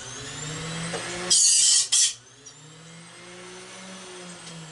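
An angle grinder runs with a steady motor whine. About a second in, it is pressed against the part for under a second, in two short grinding bursts of high hiss, to check whether the piece is metal.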